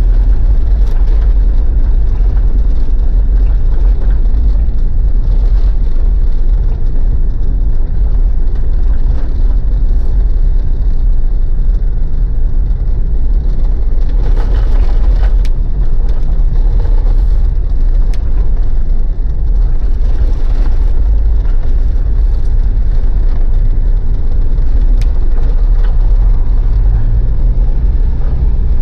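Mitsubishi Pajero's diesel engine running steadily under way, with road and tyre rumble and a few brief knocks over the rough track.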